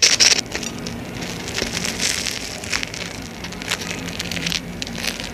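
Hot oil sizzling and crackling steadily as filled bread rolls deep-fry.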